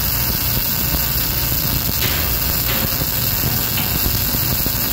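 Electric arc welding on steel plate: the arc burning steadily with a dense, even crackle.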